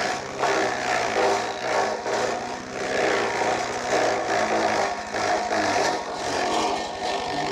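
Small petrol engine running a forage chaff cutter that is chopping green stalks, the sound surging and dipping as the bundles are fed into its blades.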